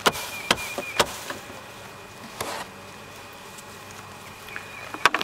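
Honeybees buzzing steadily around an open hive's top feeder, with several sharp knocks in the first second and again near the end, and a short rustle about halfway through.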